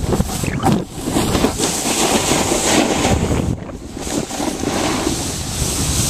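Wind rushing over a small camcorder's microphone while snowboarding downhill, mixed with the board sliding and scraping over the snow. The loudness swells and drops as the rider turns.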